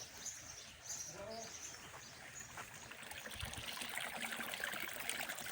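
Small birds chirping in short high notes over the first couple of seconds, then a dense crackling noise builds up in the second half.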